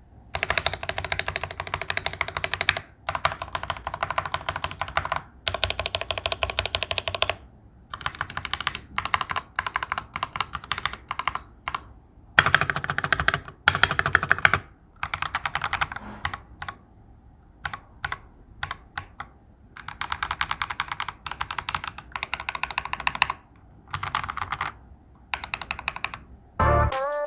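Typing test on a mechanical keyboard fitted with Akko translucent ASA plastic keycaps: rapid key clicks in bursts of a second or more, with short pauses between them. Background music with a beat comes in just before the end.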